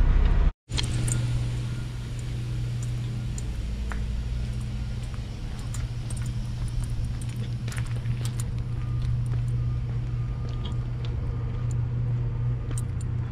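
A diesel semi truck idling with a steady low hum, scattered with light jingling clicks of keys.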